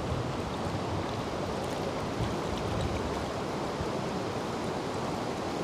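Shallow mountain stream rushing steadily.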